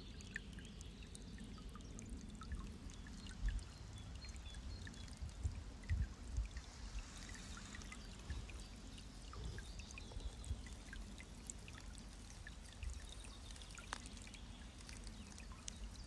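Outdoor ambience: a steady rushing hiss with a low, gusty rumble and a few dull thumps, as of wind buffeting the microphone.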